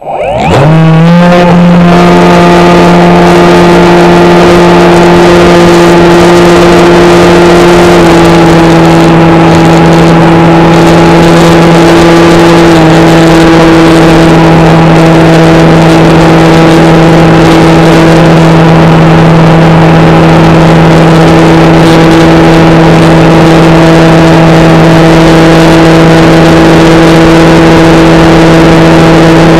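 HobbyKing SkyEye FPV plane's electric motor and propeller, heard from the onboard camera: spinning up sharply to full throttle in the first second, then a loud steady drone whose pitch drops slightly twice, about 8 and 13 seconds in.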